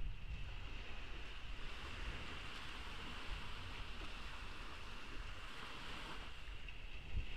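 Ocean waves washing onto a beach, one wash swelling about two seconds in and fading near six seconds, with wind rumbling on the phone's microphone.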